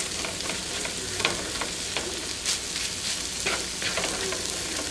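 Diced bell peppers, onion, bacon bits and turkey sizzling in a frying pan, with a spatula scraping across the pan in short strokes as the mixture is pushed together into the middle.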